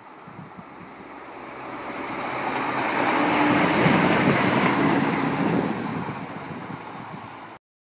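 Class 170 Turbostar diesel multiple unit passing by: its rush swells to a peak about four seconds in, with a low steady tone at the loudest, then fades and cuts off suddenly near the end.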